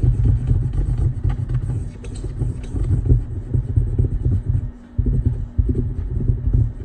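Cotton swabs soaked in alcohol scrubbing adhesive residue off an iPad mini 2's frame, heard as a low, uneven rubbing rumble with scratchy strokes, with a brief pause just before 5 seconds in.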